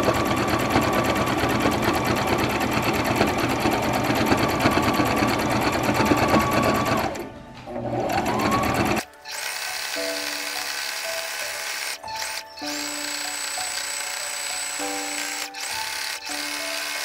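Electric sewing machine running steadily while zigzag-stitching the edge of a flannel cloth. It eases off briefly about seven seconds in, picks up again, then stops about nine seconds in, and background music with held notes follows.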